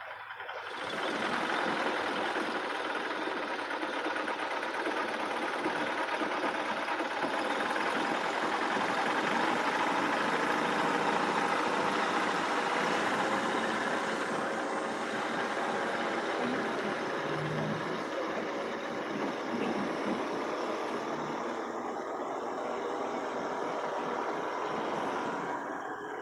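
A nearby engine running steadily, a noisy, even sound that comes up suddenly about a second in and eases off slightly near the end.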